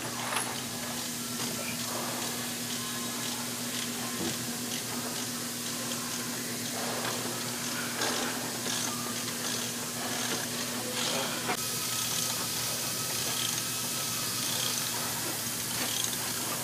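Steady rushing background noise of an aircraft maintenance hangar with a low hum, broken by a few faint knocks and clicks of propeller-hub hardware being handled. The background changes abruptly about twelve seconds in.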